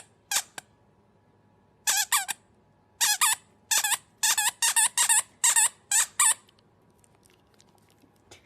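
Repeated short, high-pitched squeaks, mostly in quick pairs, about a dozen of them over the first six seconds, then they stop.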